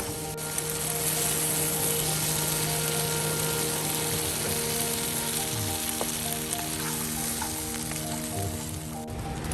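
Food frying in a pan at a camp cook-up, a steady sizzle. Soft background music of long held notes plays under it until near the end.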